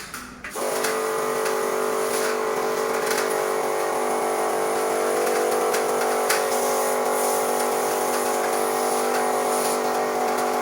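Electric high-pressure washer running with a steady motor hum and water spray hiss, switched on about half a second in and held at an even level, spraying the air conditioner indoor unit.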